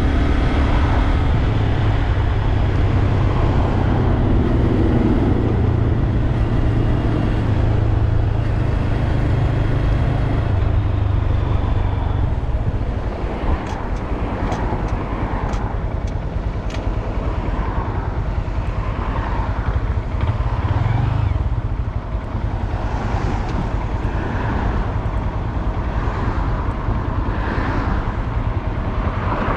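Honda Grom's 125 cc single-cylinder engine running, its steady note easing off about twelve seconds in.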